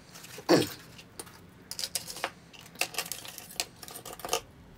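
Scattered small clicks and clinks of metal parts and tools being handled on a model locomotive, with a louder single sound about half a second in.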